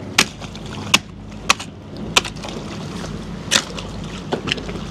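Sharp, irregular knocks of a long-handled scraper striking barnacle-crusted concrete pier pilings, knocking barnacles loose as chum for sheepshead, about seven strikes over a steady low hum.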